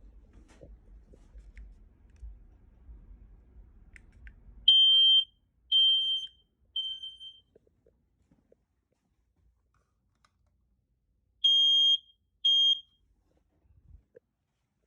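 Smoke alarm test: the alarm sounds three shrill beeps in a row about five seconds in, the third fainter, then after a pause two more beeps. This is the temporal-three evacuation pattern that smoke alarms give when their test button is pressed.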